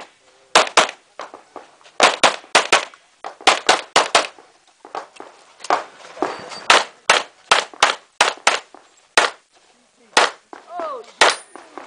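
Semi-automatic pistol firing a rapid string of shots, mostly in quick pairs a fraction of a second apart, with short pauses between groups as the shooter moves between targets in a practical shooting stage.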